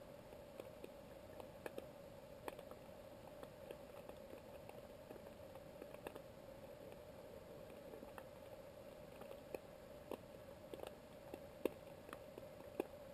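Faint underwater ambience: a steady low hum with irregular sharp clicks and ticks scattered through, about one or two a second, one louder click near the end.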